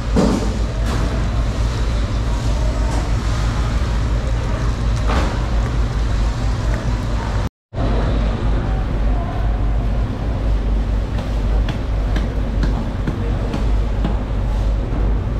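Steady background rumble and din, with a strong low hum and a few faint clicks. It cuts out for a split second about halfway through.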